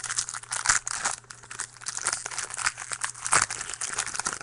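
A trading card pack wrapper being torn open and crinkled by hand, with irregular sharp crackles throughout.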